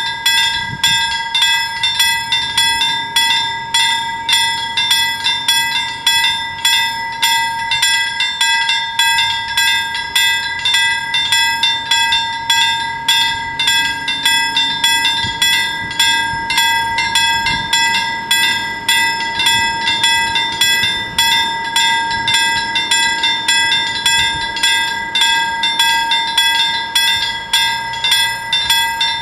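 Level-crossing warning bells ringing continuously, rapid even strokes on a metallic bell, warning that a train is approaching the closed crossing.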